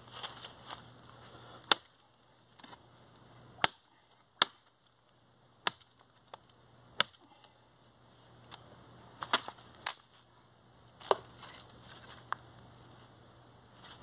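Machete blade striking a thin sapling's wood, about eight sharp single chops spaced a second or two apart, with dry leaves and twigs crackling underfoot between them.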